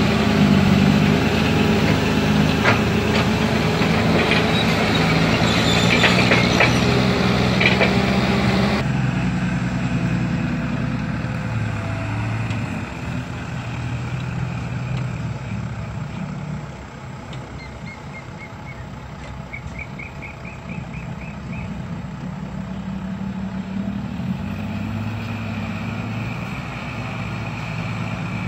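Heavy diesel engines of a backhoe excavator and dump truck running, with knocks and clatter from the digging and loading over the first several seconds. After that the engine goes on alone, quieter and steadier.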